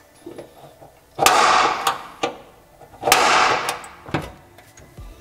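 Tool working the rusty sheet-metal trunk floor of a stripped car shell during spot-weld removal: two harsh metal grating bursts, each under a second and starting with a sharp hit, about two seconds apart, with a few light clicks between.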